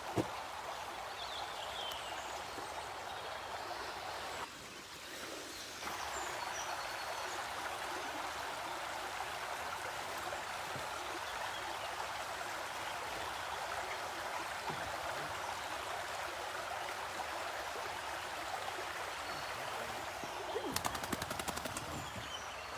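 River water rushing steadily, dipping briefly about five seconds in. A rapid run of clicks sounds near the end.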